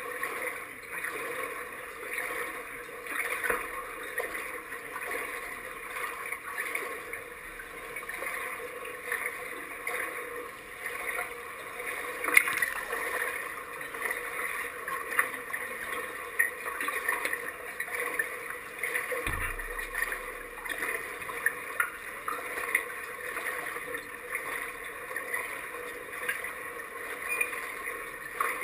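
Pool water lapping and gurgling around a half-submerged waterproof camera, with many small splashes and clicks; the sharpest splash comes about twelve seconds in.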